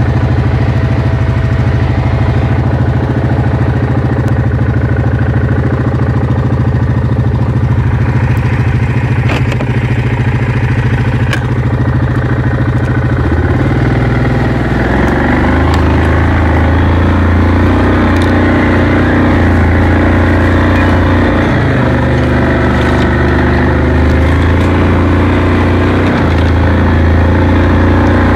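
Yamaha Kodiak 700 ATV's single-cylinder engine idling steadily while stationary, the sound growing fuller about halfway through.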